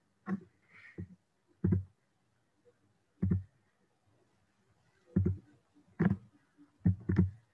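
About eight short, sharp clicks at irregular intervals, typical of a computer mouse being clicked to advance presentation slides.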